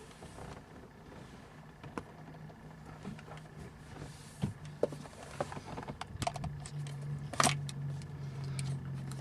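Scattered clicks and taps of small plastic and metal parts being handled as a spring is worked off a center-console hinge with a punch, the loudest click about seven and a half seconds in. A steady low hum runs underneath from about two seconds in.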